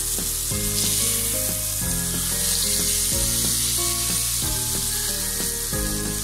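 Eggplant slices shallow-frying in oil, a steady sizzle as they are turned over in the pan to fry the second side. Background music plays underneath.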